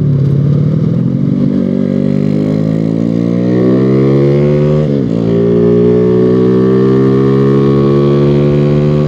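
Honda Revo 110's single-cylinder four-stroke engine pulling the bike under throttle. Its note climbs steadily, falls sharply about five seconds in as it shifts up a gear, then climbs again more slowly.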